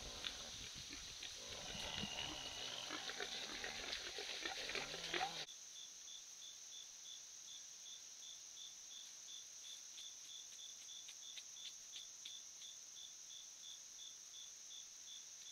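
Night insects: a steady high drone with chirps pulsing about twice a second. For the first five seconds a louder rustling with scattered clicks lies over them, then cuts off abruptly.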